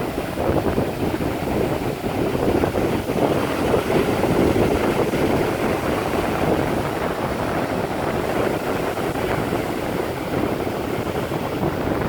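Ocean surf: a steady rushing wash of waves that swells and eases slightly, with wind on the microphone.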